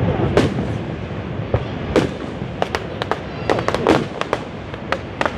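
Fireworks display: aerial shells bursting in a rapid, irregular string of sharp cracks and bangs, coming thicker in the second half, over a steady low rumble.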